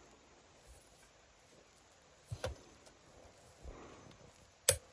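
Plastic body and parts of a Polaroid SX-70 OneStep camera being handled: a pair of light knocks about halfway and one sharp click near the end.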